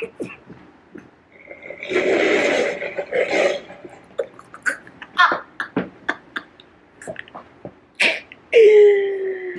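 A man's loud, raspy yelling, then a woman's breathy, stifled laughter in short bursts, and near the end a long held yell that slides slightly down in pitch.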